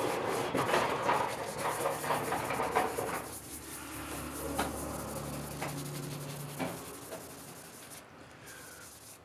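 Cloth rubbing briskly over a hand-held turned cherry-wood apple, wiping its surface. The rubbing is strongest for the first three seconds, then goes on more softly with a few light knocks before fading out.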